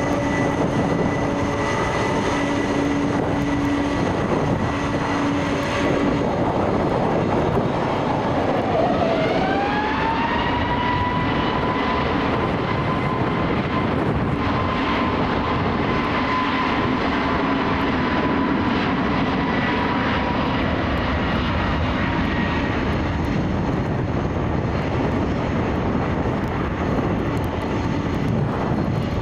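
British Airways Airbus A321neo's turbofan engines on departure: a steady jet roar, with a whine that dips and then slides up to a steady higher pitch about nine seconds in as thrust builds.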